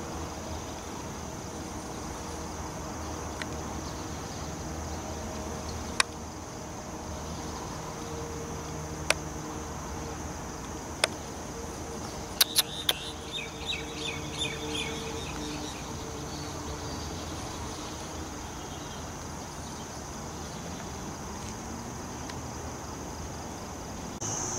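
Outdoor night ambience: a steady high-pitched insect drone, a few sharp clicks, and a short run of chirps about halfway through.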